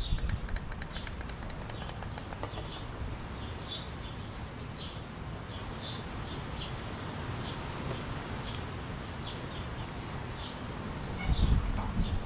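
A small bird chirping over and over, a short high chirp about once a second, over a steady low rumble. A few light clicks in the first couple of seconds and a low bump near the end.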